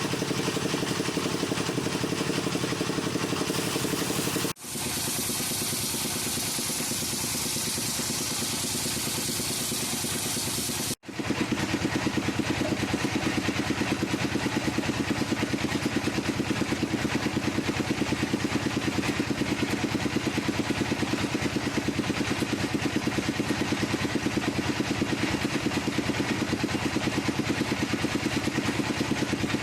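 Wood lathe running with a fast, even rhythm while a wooden workpiece is turned. The sound breaks off abruptly twice, about four and a half seconds in and again about eleven seconds in, and is louder and deeper after the second break.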